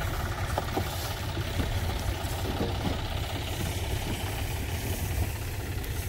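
Farm tractor's diesel engine running steadily with a low, even rumble.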